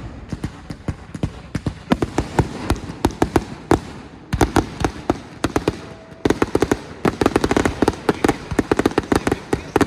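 Fireworks going off in rapid, irregular sharp cracks, several a second, in about three runs. The pops thin out briefly a little past four seconds and again near six seconds.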